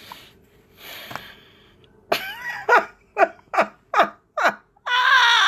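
A breathy exhale, then a person laughing in a run of short falling "ha" bursts, about two or three a second, ending in a longer drawn-out vocal sound.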